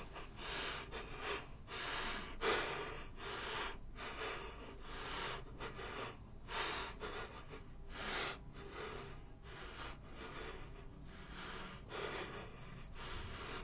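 A man breathing heavily in ragged, irregular breaths, one every second or so, over a faint low room hum.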